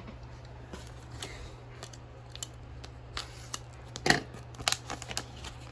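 Scissors cutting into a clear plastic blister pack of trading cards, the plastic crackling and clicking in short irregular snips, the loudest about four seconds in.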